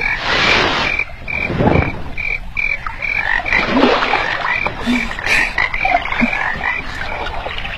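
Frogs croaking in a steady rhythm of short, high calls, about two or three a second, with water sloshing underneath as someone wades and swims in the pond.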